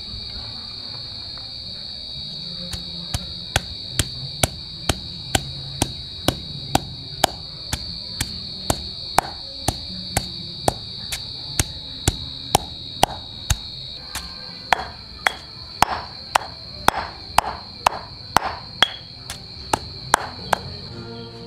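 Heavy stone pestle pounding lemongrass, garlic and turmeric in a stone mortar, grinding them into a spice paste: a steady rhythm of dull thuds at about two strikes a second.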